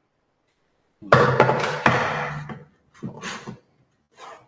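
A wooden bench hook set down on a workbench with a knock about a second in, followed by a few short rasping strokes of a fine back saw cutting across a board.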